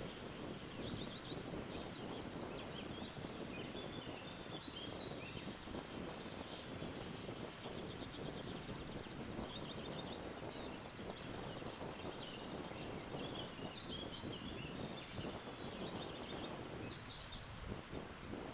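Several birds chirping in quick, short calls over a steady rush of wind, the calls busiest in the second half.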